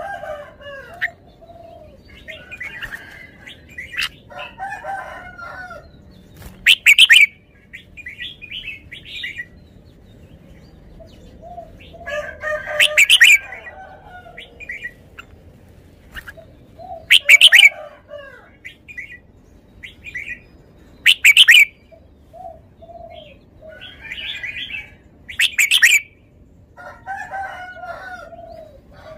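Caged red-whiskered bulbul singing: a loud, bright song phrase about every four seconds, five in all, with softer twittering and warbling between them.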